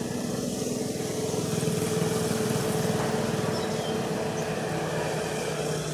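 A small engine running steadily, a continuous pitched hum with a fast pulsing beat, a little louder in the middle.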